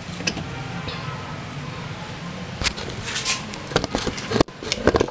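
A steady low hum, then a string of sharp knocks and clicks in the second half as washing machine suspension rods are handled and unhooked from the tub.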